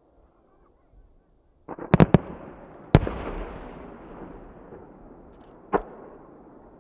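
Aerial firework shells bursting: a quick cluster of sharp bangs about two seconds in, a single loud boom about a second later that rolls away in a long, fading echo, and one more bang near the end.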